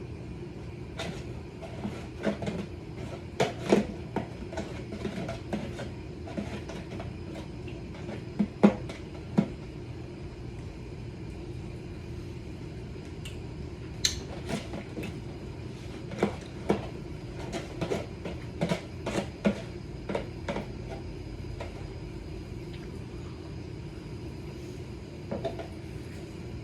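A spoon clicking and scraping against a dish while homemade cottage cheese is eaten, in scattered light knocks with pauses between them, over a steady low room hum.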